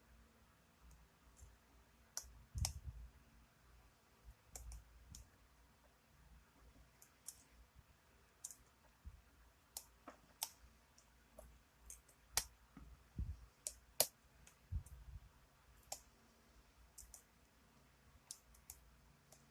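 Lock pick and tension wrench working in a pin-tumbler lock: irregular small metallic clicks and ticks as the pick lifts and scrapes pins, a few per second, with occasional soft low bumps from handling the lock.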